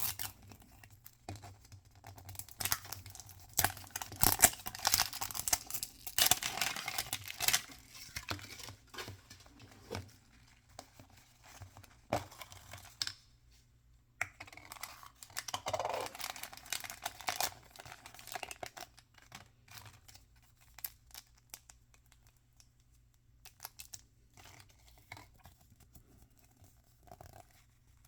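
Toy packaging torn open and crinkled by hand. Long stretches of rustling tearing come about three seconds in and again about halfway through, with small clicks and handling noises between.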